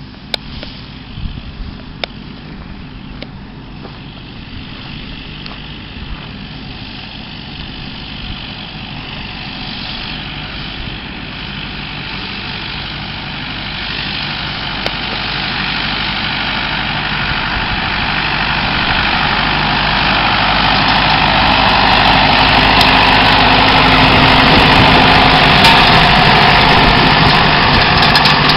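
Farm tractor engine running steadily and growing louder as it comes closer.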